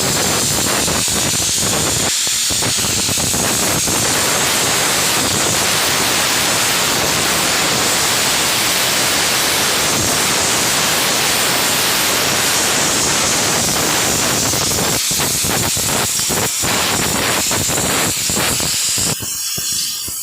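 Loud, steady hissing, with scattered crackles near the start and again in the last few seconds.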